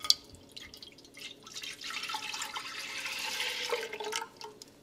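Milk pouring in a stream from a plastic jug into a large empty nonstick pot, splashing on the bare bottom and then into the rising milk. A light knock at the very start; the pour grows fuller about a second and a half in and tails off near the end.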